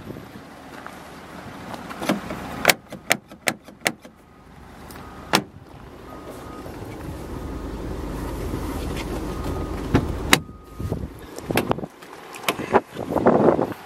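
Clicks and knocks from a pickup truck's open door and window frame being handled. In the middle a low rushing noise builds, and there is a faint on-off beep.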